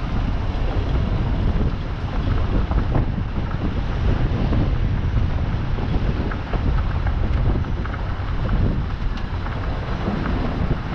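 Steady low rumble of heavy logging machinery running, with wind buffeting the microphone and light scattered rattles.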